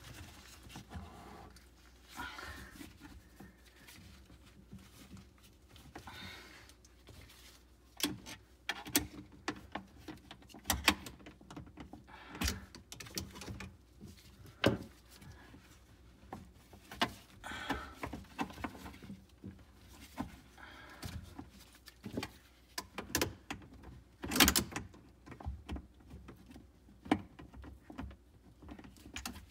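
Handling noises from fitting a garbage disposal and its plastic drain pipes: scattered knocks, clicks and rubbing of plastic and metal parts being pushed and twisted together, with sharper knocks around 12 and 24 seconds in.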